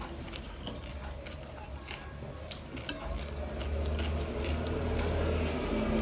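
Close-miked chewing of a crunchy snack, with many small crisp crackles and clicks coming irregularly, over a low steady hum.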